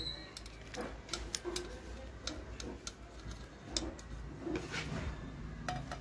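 Scattered light metallic clicks and taps, at irregular intervals, from a stainless steel mixer jar as the screws and nut holding its new bush are fitted and tightened with a screwdriver.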